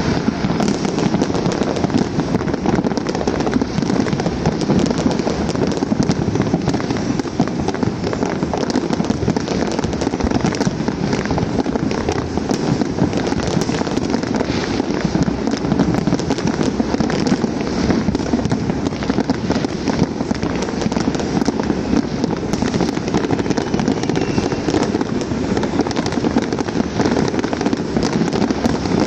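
Many fireworks and firecrackers going off at once: a dense, unbroken crackle of countless small pops and bangs.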